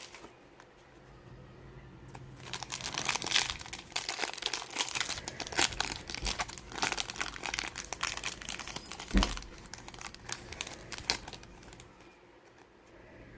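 Foil trading-card pack wrapper being torn open and crinkled, a dense crackling that runs for several seconds, with a single dull knock near the end.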